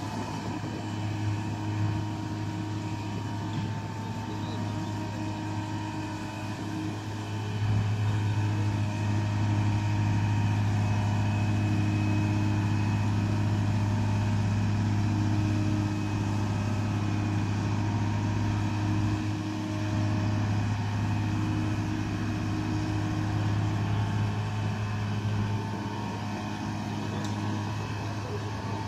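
Truck-mounted crane's engine running steadily under load as it hoists a mobile home. It gets louder about eight seconds in and eases off slightly later.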